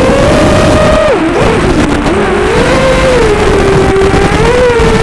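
FPV quadcopter's brushless motors and propellers whining, the pitch following the throttle: steady at first, a drop about a second in, then rising and falling as the quad manoeuvres.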